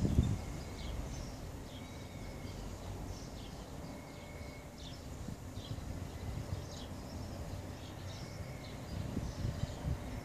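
Outdoor ambience: small birds chirping now and then, with wind rumbling on the microphone, heaviest at the very start and again near the end.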